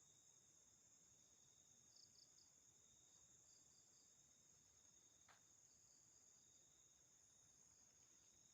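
Faint chorus of crickets trilling steadily on two high pitches, with a quick run of three short chirps about two seconds in and a single faint click a little past the middle.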